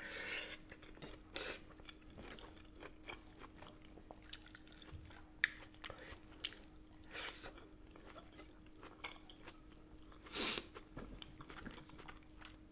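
Close-miked chewing of food eaten by hand, with scattered crisp crunches and wet mouth sounds as raw cabbage leaf is bitten and chewed along with pork and potato. A louder crunch comes about ten and a half seconds in.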